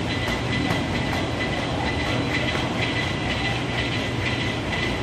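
Steady mechanical hum and hiss with a thin, constant high whine and a few faint ticks.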